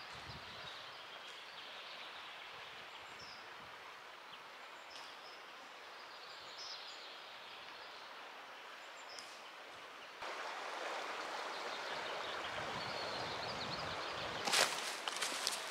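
Pine-forest ambience: a steady hiss with faint, scattered bird chirps. About ten seconds in it steps up to a louder, denser rushing, and a few sharp clicks come near the end.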